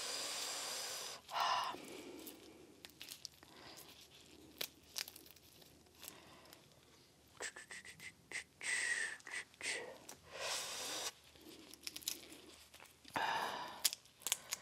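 Boiled crawfish being twisted and peeled with plastic-gloved hands: shells crackling and tearing in short bursts, with scattered small clicks and the crinkle of the gloves.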